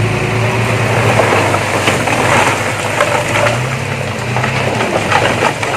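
Heavy diesel engine of earthmoving machinery running, its note stepping up briefly past the middle before dropping back, with scattered metallic clanks and knocks.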